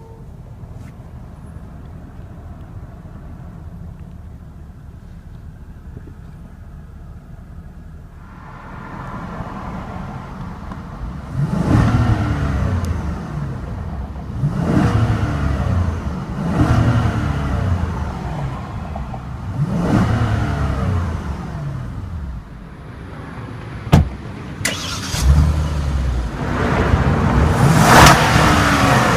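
2015 Hyundai Equus's 5.0-litre V8 idling steadily after start-up, then being revved in the driveway again and again, each rev climbing and falling back to idle. There is one sharp click about three-quarters of the way through.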